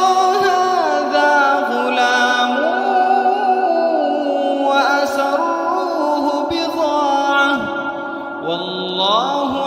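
A man's voice reciting the Quran in a slow melodic chant, holding long notes that bend up and down in pitch.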